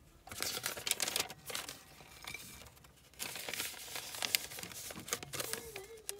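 Paper crinkling and rustling in two stretches as a grilled sandwich is wrapped in a white paper sandwich bag.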